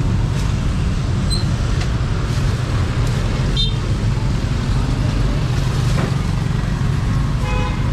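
Street traffic: a steady rumble of passing motor vehicles, with one brief high beep about three and a half seconds in.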